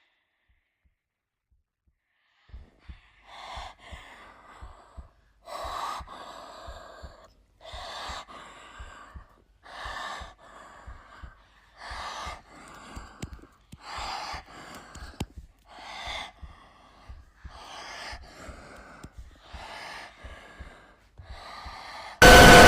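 Slow, heavy breathing, one breath about every two seconds, with faint low clicks under it. About two and a half seconds from the end it is cut off by a sudden, very loud noise with steady tones: the jumpscare sound.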